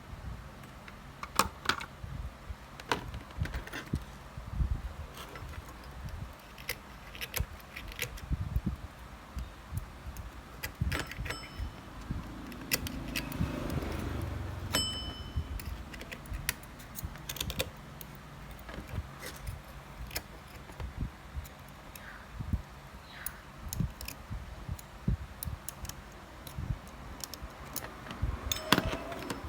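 Tools and small metal parts clicking and clinking in irregular handling, a few strikes ringing briefly, over a low steady hum.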